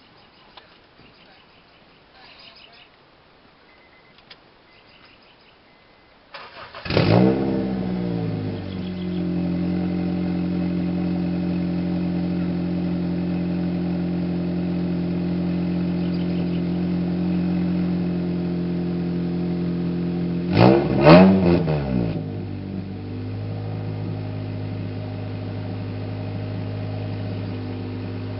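A 2002 Honda Civic EX's 1.7-litre four-cylinder engine, breathing through a full MeganRacing aftermarket exhaust, is started about six seconds in after a few faint clicks, flares briefly and settles into a steady idle. About twenty seconds in it is revved once, the note rising and falling, then it idles a little quieter.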